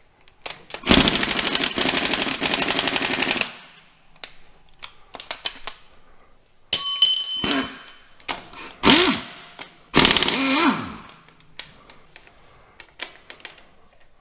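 Impact wrench hammering rapidly for about two and a half seconds as it breaks loose a bolt on a Farmall 806 tractor's rear housing. A short metallic ring follows midway, then two shorter wrench bursts whose pitch falls off as they stop, with small metal clicks between.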